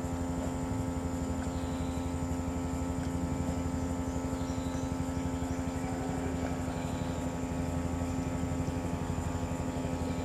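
Engine running steadily at one even pitch, a constant low drone with a fast pulse.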